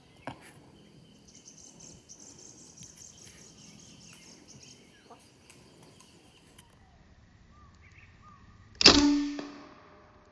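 A single sharp air-rifle shot about nine seconds in, with a brief ring after it. Before it there is only faint forest ambience with a high, thin buzz and a few faint chirps.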